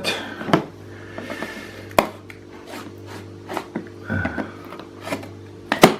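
A cardboard box being opened by hand: sharp clicks and knocks about half a second in, at two seconds and loudest near the end, with lighter handling and rustling noises between.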